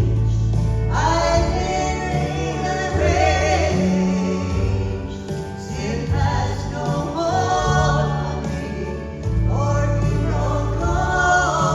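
Gospel vocal trio singing with instrumental accompaniment, the voices held with vibrato over a steady bass line that changes note every second or two.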